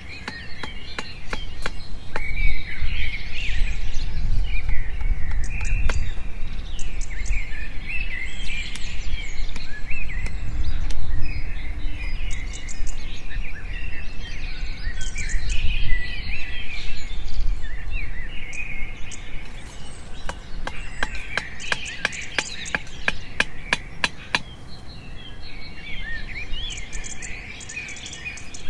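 Many wild birds chirping and calling over one another in dense woodland, with short quick calls throughout. A quick run of sharp clicks comes about two-thirds of the way through, over a low rumble.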